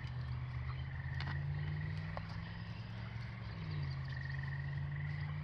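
Frogs trilling in the background in stretches of about a second, over a steady low hum that steps down slightly in pitch partway through.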